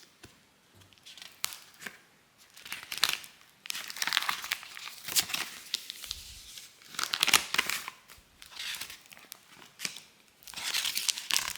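Crinkling and rustling of something being handled, in irregular bursts of a second or so with sharp crackles among them.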